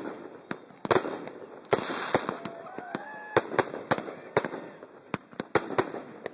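Aerial fireworks shells bursting in quick, irregular succession: a dozen or so sharp bangs, with crackling between them that swells around two seconds in.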